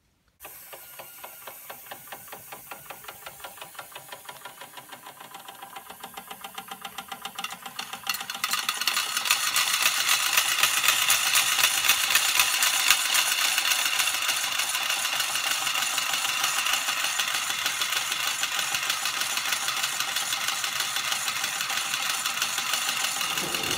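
Early Schoenner toy steam engine running, its flywheel driving a tin spinning toy by a string belt: a fast, even mechanical ticking rattle that starts suddenly and grows louder about eight seconds in.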